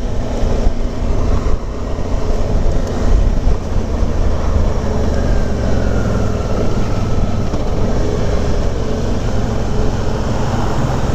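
Motorcycle engine running steadily while riding, over a constant rush of road noise.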